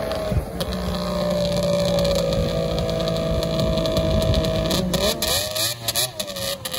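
Two racing snowmobiles at full throttle climbing a hill, their engines running at high, steady revs. About five seconds in the engine pitch starts wavering up and down as the sleds work up the course.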